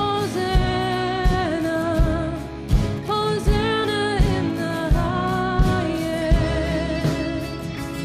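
Contemporary Christian worship song: a lead voice sings long, wavering notes over a full band with a steady drum beat, about one hit every 0.7 seconds.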